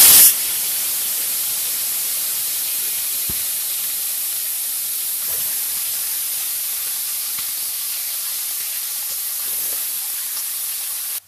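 Shredded cabbage frying in hot oil in an iron kadai: a steady sizzling hiss, very loud for the first fraction of a second, then even until it cuts off suddenly near the end.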